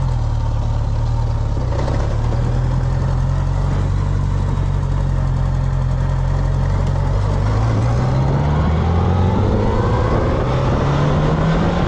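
A Honda GL1100 Gold Wing's flat-four engine runs steadily, then from about two-thirds of the way in its pitch climbs as the engine speeds up.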